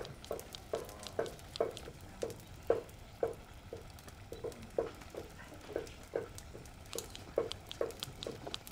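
Wooden swizzle stick twirled between the palms in an aluminium pot of cooked bean leaves, making a regular swishing knock about twice a second as the leaves are hand-blended into a smooth sauce.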